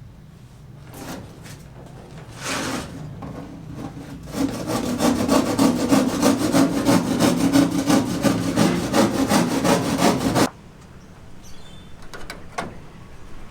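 Wood being sawn with quick, even back-and-forth strokes, about four a second. The strokes start about four seconds in and stop suddenly, after a few scattered knocks earlier on.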